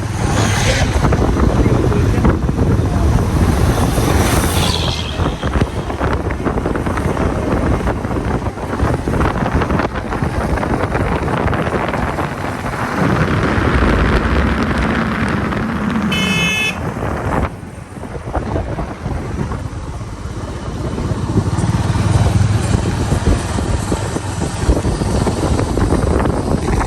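Steady engine and road rumble of a moving vehicle, with a short horn toot about sixteen seconds in.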